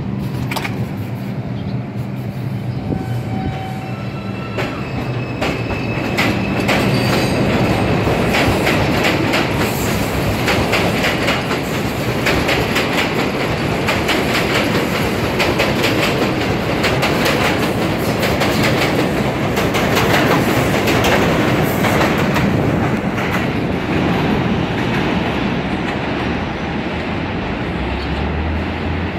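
R142 subway train pulling out of an elevated station. Its electric motors whine, rising in pitch in steps as it speeds up, then the cars roll past with a dense, fast clatter of steel wheels on the rails.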